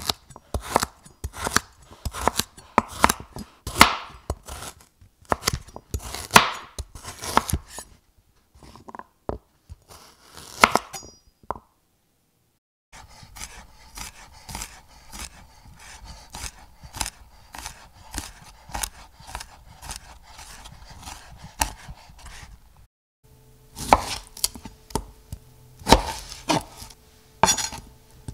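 Knife chopping on a cutting board: repeated sharp strokes, a couple a second at first. After a brief silence about 12 seconds in, quicker, lighter chopping runs over a steady hum, then heavier, spaced strokes over a low hum near the end.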